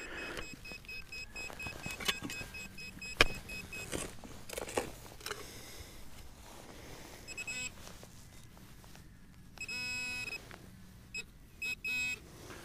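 Metal detector giving short beeping signal tones over a target. There are several sharp knocks in the first five seconds, and a longer buzzing tone about ten seconds in.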